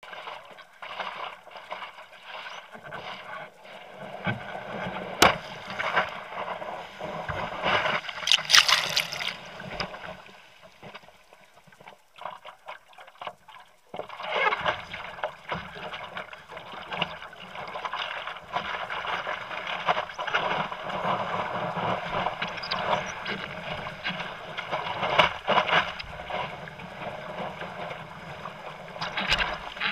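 Seawater splashing and sloshing against a surfboard, picked up close by a camera mounted on the board, with breaking surf around it. The sound drops away for a few seconds about ten seconds in, then picks up again, busier and louder, as the board rides the white water.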